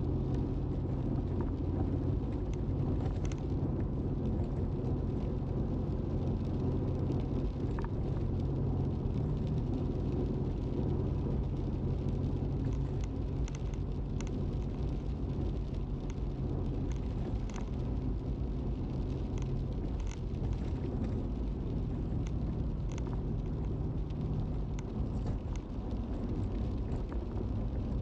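Car driving on a wet road, with a steady low engine and tyre rumble. Scattered light ticks of raindrops are heard over it.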